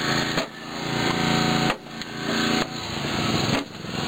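Small petrol engine of a hydraulic rescue-tool power unit running hard while a hydraulic spreader forces a car door open. Its sound dips sharply and swells back roughly every one and a half to two seconds.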